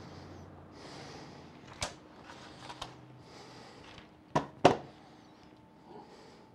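Handheld plastic ESR meter being picked up and moved, with soft rustling and a few light clicks, then set down on a rubber work mat with two sharp knocks close together about four and a half seconds in.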